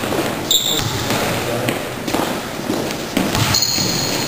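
Gym noise during a basketball game: a basketball bouncing and thudding on the wooden court, with players' voices echoing in the hall. Two brief high squeaks, about half a second in and again near the end.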